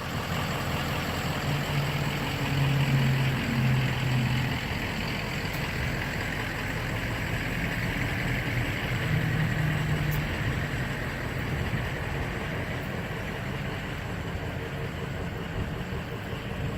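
A vehicle engine running steadily under a wash of noise, with a low hum that swells twice.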